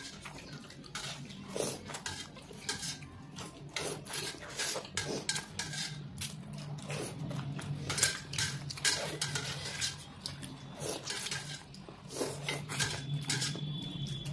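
Chopsticks clicking and scraping against stainless-steel plates of soupy noodles, mixed with noodles being slurped: many short, irregular clicks and slurps.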